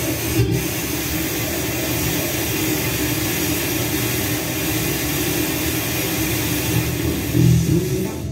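Steady hiss of radio static from an NAD 4020A AM/FM tuner, with the dial turned off any station.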